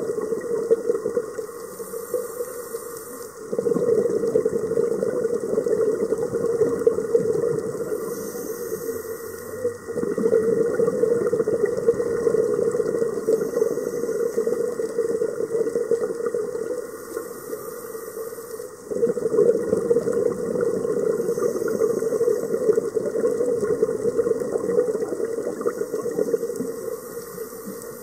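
A scuba diver breathing through a regulator, heard underwater: a short hiss on each inhalation, then several seconds of bubbling as the exhaled air escapes. There are three breaths, each new exhale starting abruptly.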